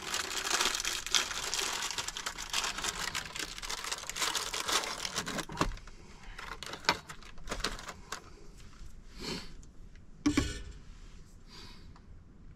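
Plastic food wrapper crinkling and rustling in the hands for about five seconds, then a few scattered light taps and clicks, with one louder knock about ten seconds in.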